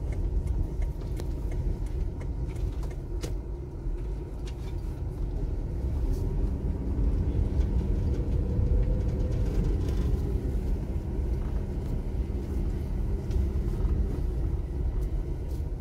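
A car's engine and tyres make a steady low rumble, heard from inside the cabin while driving on a hilly road. A few light clicks come in the first few seconds.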